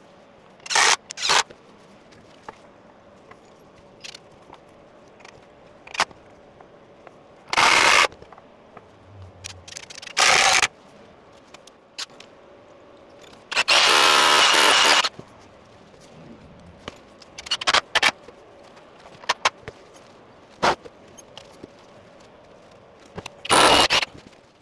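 Power drill running in short bursts, fixing softwood studwork timbers, with one longer whining run of about a second and a half about two thirds of the way through. Scattered knocks and clicks of timber being handled come in between.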